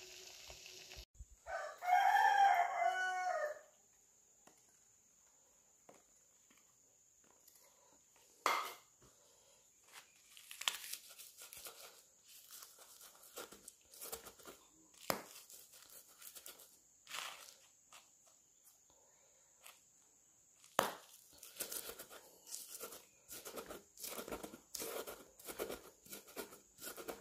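A rooster crows once, about two seconds in. Later a stone pestle strikes and grinds against a wooden mortar board, crushing chillies, tomatoes and salt, in irregular taps that come thicker near the end.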